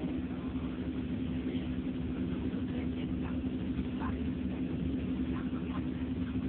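Pumpboat engine running at a steady speed: an even, unbroken drone held on one low pitch.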